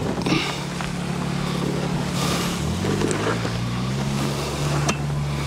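A motor engine running steadily, its pitch stepping down a little about halfway through, with a couple of dull knocks from a pole pushing greens down into a metal drum.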